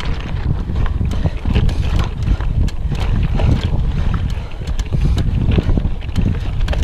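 Canyon Grail gravel bike rolling over a loose, rocky trail: tyres crunching on stones with frequent sharp clicks and rattles from the bike, under heavy wind rumble on the microphone.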